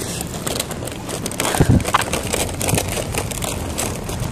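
Rustling and handling noise close to the microphone as a tote bag is rummaged for keys while walking, with a dull thump about one and a half seconds in.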